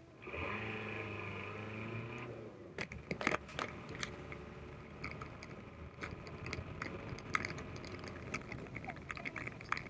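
Pickup truck heard from inside the cab: the engine pulls away with a steady pitched note for about two seconds, then the tyres crunch over a rough dirt and gravel track with a run of sharp clicks and knocks from the bumping truck.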